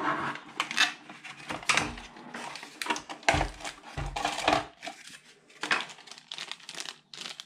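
Handling noise as a cardboard packing insert is scraped and rustled out of a plastic wax-melting machine, with irregular clicks and a couple of dull thumps a little after three and four seconds in.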